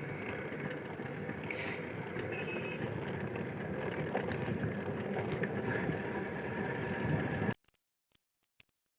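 A motor-driven machine running steadily, cutting off abruptly about seven and a half seconds in.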